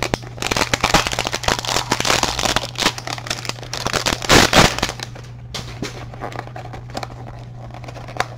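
Cardboard and wrapping of a trading-card hanger box being torn and pulled open by hand: dense crackling and crinkling, loudest about four and a half seconds in, then lighter rustling and clicks.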